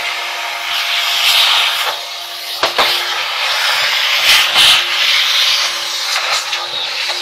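Shop vac running with a steady whine, its hose nozzle sucking and scraping over the dryer's plastic housing. The hiss swells and fades as the nozzle moves, with a couple of sharp knocks of the nozzle against the plastic.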